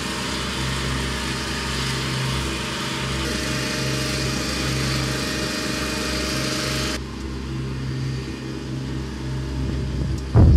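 A small engine running steadily at a constant speed, a low, even hum.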